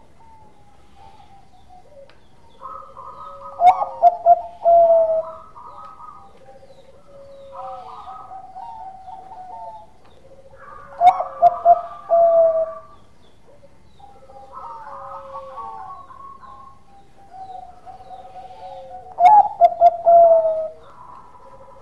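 Bangkok-type zebra dove (perkutut) singing: three loud phrases about eight seconds apart, each a quick run of stuttering coos, with softer cooing in between.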